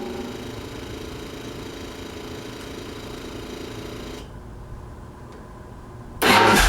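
Yamaha Road Star V-twin motorcycle engine running steadily. About four seconds in it turns softer and duller, and near the end a much louder sound cuts in suddenly.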